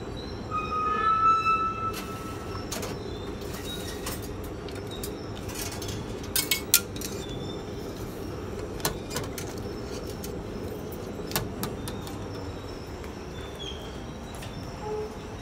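Steady low rumble of an underground metro station, with a brief high, steady tone about a second in and a few sharp clicks, the loudest a pair about six and a half seconds in.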